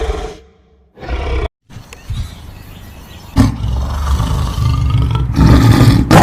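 Calls of large wild animals in short clips cut back to back. The loudest is a long, low call that starts suddenly about three seconds in and grows louder near the end.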